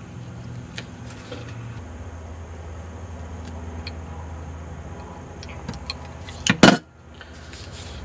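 Small clicks and light rustling from hands handling a power adapter's stripped wire, with a brief loud clatter about six and a half seconds in, over a low steady hum.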